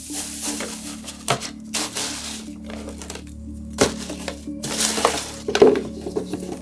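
Shredded-paper packing filler rustling and crinkling as it is stuffed into a cardboard shoebox by hand, with a few sharp knocks of the box being handled; the loudest knock comes near the end as the lid goes on.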